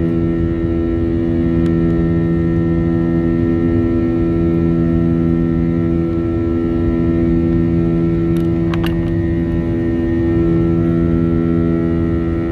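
Airliner jet engines droning steadily, heard inside the passenger cabin, with several steady hum tones over a low rush. A pair of brief clicks comes about two-thirds of the way through.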